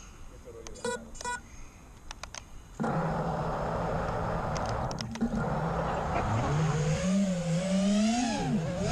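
Two short electronic beeps about a second in. About three seconds in, an FPV freestyle quadcopter's brushless motors and propellers start spinning at idle with a steady hum and hiss. From about six seconds the pitch rises and wavers up and down as the throttle comes up for takeoff.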